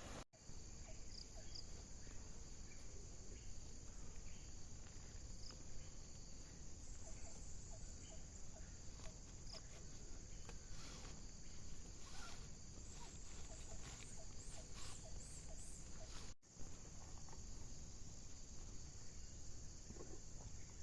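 Insects, likely crickets, chirring in a steady high-pitched drone over a low rumble of outdoor noise, with scattered small ticks and chirps. The sound drops out briefly twice, near the start and about three-quarters of the way through.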